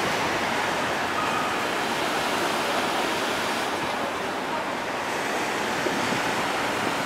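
Steady rushing roar of a twin-engine jet airliner's engines as it flies away on approach, heard from well below.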